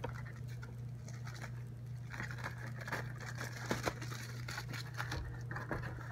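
Pink plastic bubble-wrap bag crinkling and rustling as it is handled and lifted out of a cardboard box, with small taps and scrapes of the cardboard; the rustling picks up about two seconds in. A low steady hum runs underneath.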